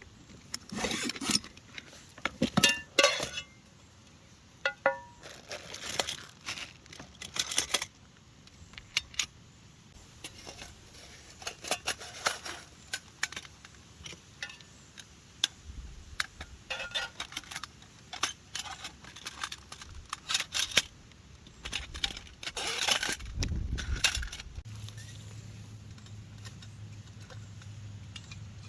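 Camp cooking gear being handled: scattered metallic clinks, knocks and rattles of cookware and utensils being laid out and set up. A steady low hum sets in near the end.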